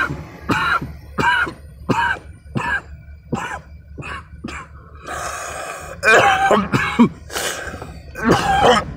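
A man coughing and clearing his throat in a run of short bursts, a little more than one a second, thicker near the end. Under it is the steady low hum of a car cabin on the move.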